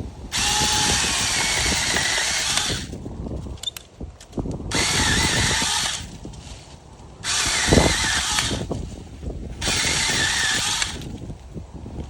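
Small cordless electric chainsaw run in four bursts with pauses between, the first about two and a half seconds long and the rest shorter. There is a thump about two-thirds of the way through.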